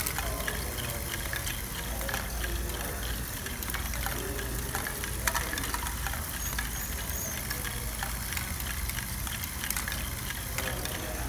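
LEGO Great Ball Contraption running: motors and gear trains whirring steadily while plastic balls click and clatter through the lifts, conveyors and tracks, in many short irregular clicks.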